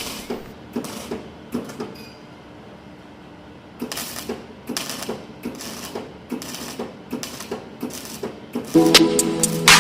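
Repeated light knocks and clicks at irregular spacing, about two a second, with a quieter stretch between, then music comes in near the end.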